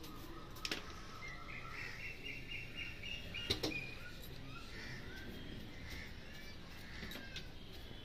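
Pet parrot giving a rapid trilled chirping that steps up in pitch for about two seconds. Two sharp clicks, the louder about three and a half seconds in.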